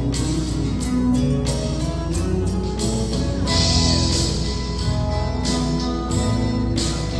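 Instrumental music with a steady beat of repeated drum strikes under sustained melody notes, with a brighter shimmer of high percussion about halfway through.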